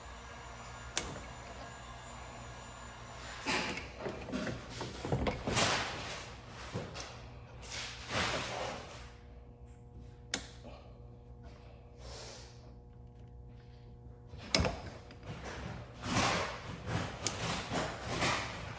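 Hands working a plastic wiring connector loose behind a car headlight: scraping and rustling of plastic with several sharp clicks, one about a second in and others near the middle and toward the end.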